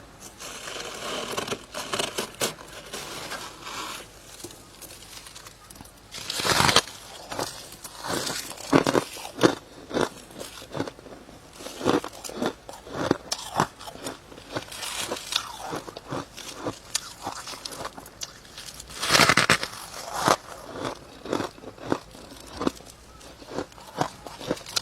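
Close-up crunching and chewing of soft, powdery freezer frost: a steady run of irregular crisp bites, with two louder, longer crunches, one about a quarter of the way in and one about three quarters in.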